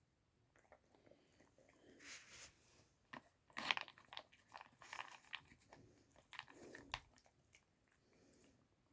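A dachshund crunching treats at a puzzle feeder: faint, scattered crunches and clicks between about two and seven seconds in.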